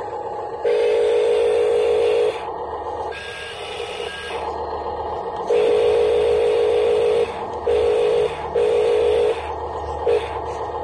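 Electric whine from radio-controlled Huina construction models' motors, switching on and off abruptly in several bursts of up to about two seconds, with a fainter steady whine underneath.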